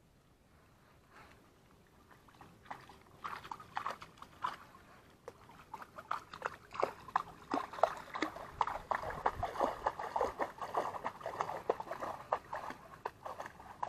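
Water splashing and sloshing close by in quick, irregular splashes. It starts faintly about two seconds in and grows busier and louder through the rest.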